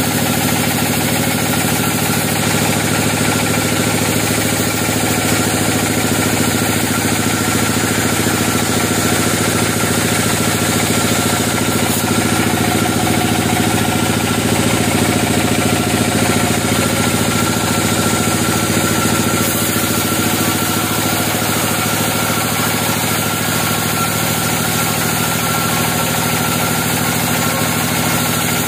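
Band sawmill running as its blade cuts lengthwise through a log: a steady machine drone with an even hiss from the cut.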